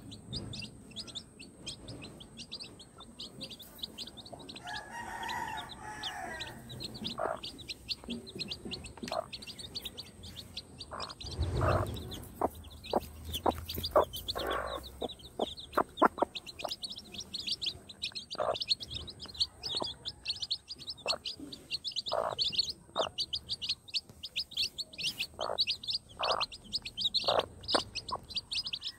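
Chicks peeping non-stop in quick high chirps, with short clucks from the mother hen scattered throughout. A longer drawn-out call comes about five seconds in, and there is a dull thump close to the camera about twelve seconds in.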